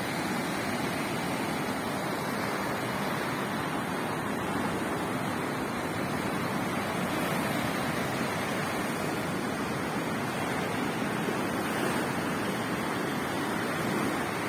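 Sea waves breaking on a beach: a steady rush of surf.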